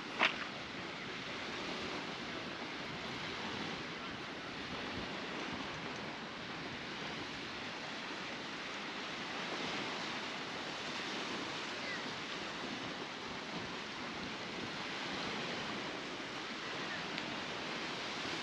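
Baltic Sea waves washing onto the beach: a steady surf hiss that swells and eases every few seconds. A brief sharp sound cuts in right at the start.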